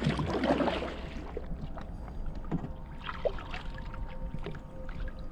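Kayak paddle dipping into calm water and splashing, with water dripping off the blades. The splashes are strongest in the first second, then give way to lighter, scattered drips and small splashes.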